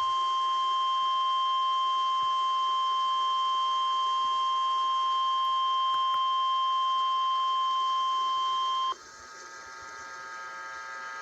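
NOAA Weather Radio 1050 Hz warning alarm tone: a single steady, unwavering high tone that cuts off abruptly about nine seconds in, signalling that a new warning broadcast follows. After it, only faint steady hiss from the stream.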